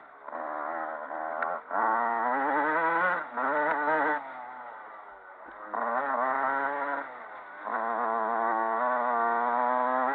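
Dirt bike engine, heard from a camera on the bike, revving hard in four bursts that rise in pitch, with short off-throttle drops in between as the rider accelerates and backs off.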